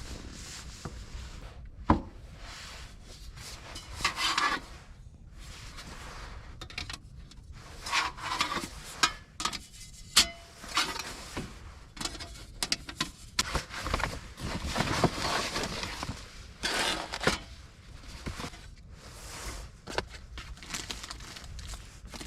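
Camping gear being handled by hand: irregular rubbing and rustling, with sharp knocks about two seconds and ten seconds in.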